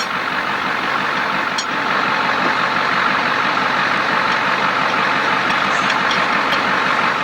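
Steady vehicle engine and road noise, with a few faint clicks.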